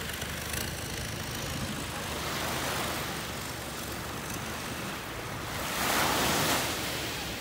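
Long-tail boat's engine running as the boat pulls away, over small waves washing at the shore. A louder rush of water and wind swells briefly about six seconds in.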